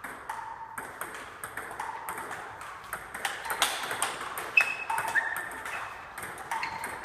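Table tennis rally: the celluloid ball clicking back and forth off the paddles and a JOOLA table in quick, irregular knocks, the loudest a little past halfway.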